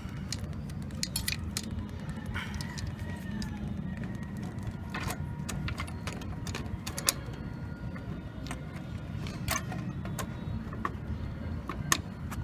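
Scattered light clicks and taps of hands handling computer parts at the CPU socket, about eight spread unevenly, over a steady low hum.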